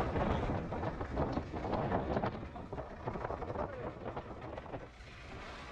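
Wind buffeting the microphone: a rough rumbling, rustling noise that dies down about four and a half seconds in.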